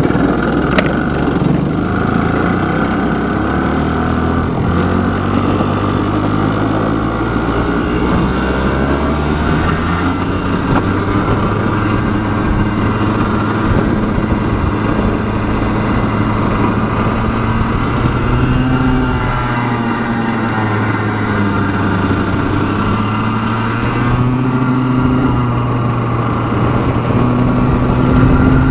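Racing kart engine heard on board during a lap, running hard with its pitch climbing and falling as the kart speeds up and slows for corners.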